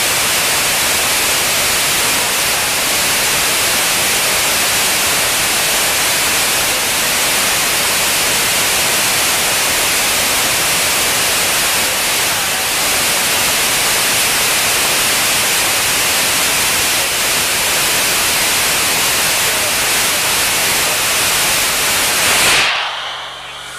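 Rocket engine static test firing: a loud, steady rushing noise of the exhaust plume. It stops suddenly near the end as the burn ends.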